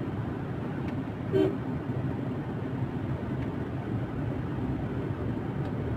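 Steady road noise and engine hum inside a moving car's cabin. A brief vocal sound breaks in about a second and a half in.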